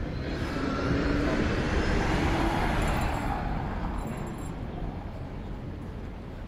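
A motor vehicle passing close by: its noise builds over the first second or two, is loudest about two to three seconds in, then fades away.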